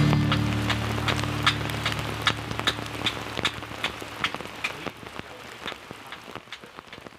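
Rain falling on a tarp shelter overhead: separate drops strike at an uneven pace over a soft patter, and the whole sound fades away toward the end. Background music fades out in about the first second.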